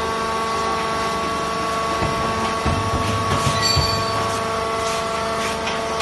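Vertical hydraulic coir-fibre baler running, its hydraulic power unit giving a steady whine of several held tones. Low knocks and a few clanks come between about two and four seconds in.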